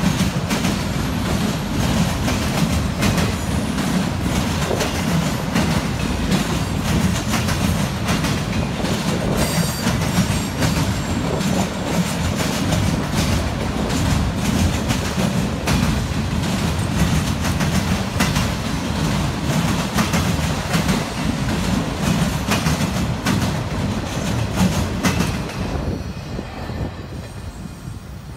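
Norfolk Southern autorack freight cars rolling past over a railroad diamond crossing, their wheels clacking over the rail joints in a steady train rumble. The sound fades away near the end as the last car goes by.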